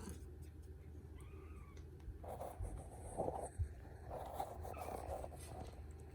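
Balinese kittens giving a few faint, short rising-and-falling mews. In the middle there is a louder scuffling rustle.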